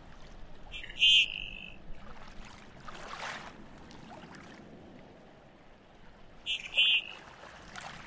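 Common goldeneye calling twice, about five and a half seconds apart. Each call is a couple of quick high notes, over a steady background hiss.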